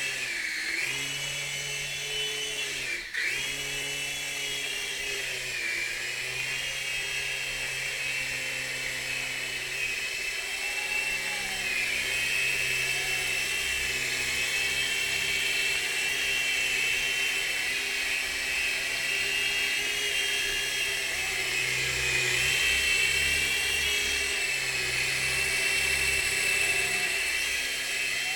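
Mini 3-channel electric RC helicopter (DFD F103 flown without its turbines) in flight, its rotors and little electric motors giving a steady high-pitched whine. The pitch dips and recovers several times, sharply about three seconds in, as the speed changes.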